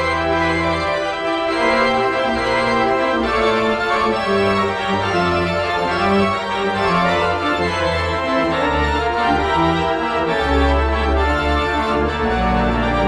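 Organ-like keyboard music: held chords that change every fraction of a second over a deep, shifting bass line.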